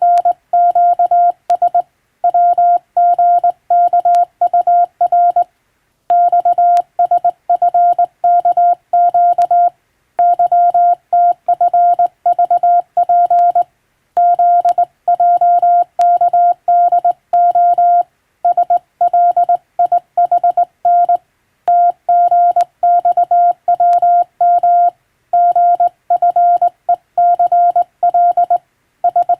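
Morse code (CW) sent by hand on a telegraph key, heard as a single steady tone of about 700 Hz switched on and off in dots and dashes. The characters come in groups with a short pause between groups every few seconds, as in sending telegram practice text.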